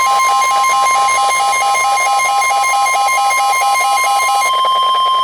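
NOAA Weather Radio's 1050 Hz warning alarm tone: one loud, steady, pure tone, the signal that a warning message follows. Over it runs a second, faster pulsing beep at about four beeps a second, which stops about four and a half seconds in.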